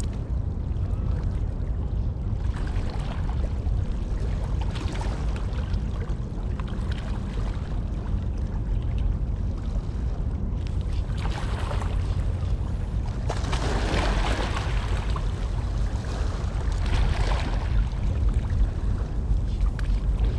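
Wind buffeting the microphone: a steady low rumble, with louder gusts of hiss every few seconds.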